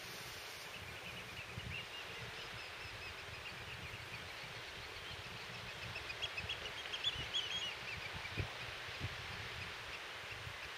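Many birds calling at a distance, a stream of short, high chirps that grows busier about six to eight seconds in, over a steady rush of wind on the microphone.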